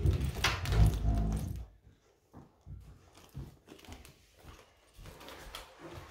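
A handbag and its strap handled close to the microphone. For about a second and a half there is heavy rubbing and knocking, then quieter small taps and rustles as the strap is fitted to the bag.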